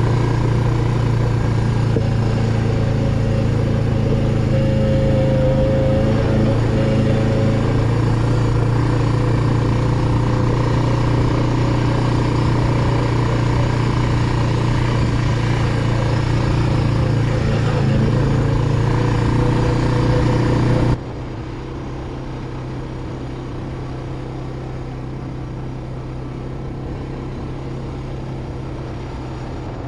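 Suzuki 400 ATV engine running steadily under way, a low drone with a broad rush of noise over it. About 21 seconds in the sound cuts abruptly to a quieter, duller steady engine drone.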